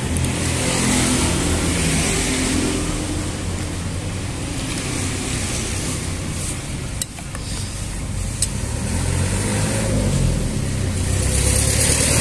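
Motor vehicle engine running nearby as a steady hum, growing louder over the last couple of seconds, with two sharp clicks about seven and eight seconds in.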